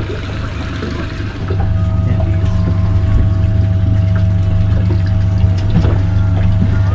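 A motor on the fishing boat humming steadily, with water lapping and trickling around the hull. It gets louder about a second and a half in.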